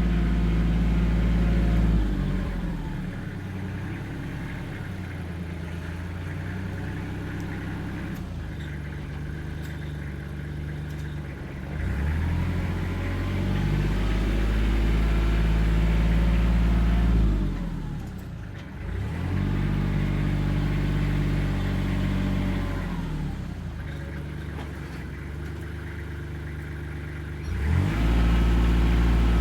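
A work machine's engine running under varying load, its speed dropping and climbing again several times: high at first, lower from about two seconds in, up again around twelve seconds, dipping briefly near eighteen seconds, and back up near the end.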